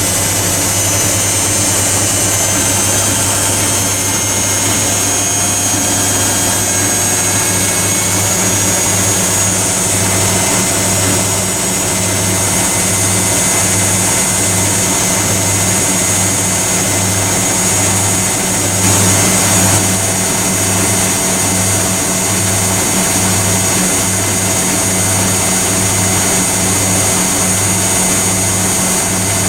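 Privileg Compakt 92 washing machine and AEG Lavatherm CE tumble dryer running together: a steady machine hum that swells and fades about once a second, under a constant high hiss.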